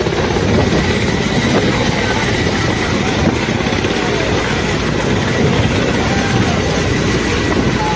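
Military transport helicopter running on the ground with its rotor turning: a loud, steady rush of turbine and rotor noise mixed with the rush of fast-flowing floodwater.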